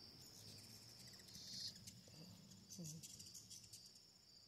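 Faint, steady high trill of crickets or other insects, with a few short bursts of rapid high ticking or chittering over it in the first three seconds or so.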